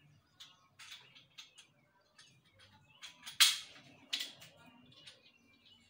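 Sharp clicks and crinkles from handling the plastic parts of a satellite dish and a plastic-wrapped part, the loudest click about three and a half seconds in.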